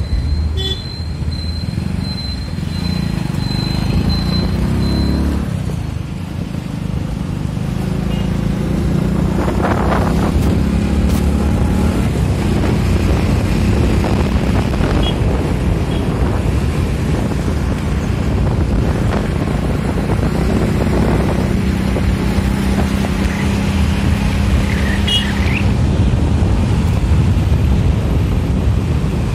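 Road traffic heard from a moving vehicle: a steady engine hum and rumble, with wind buffeting the microphone. Other vehicles swell up as they pass, about a third of the way in and again past the middle.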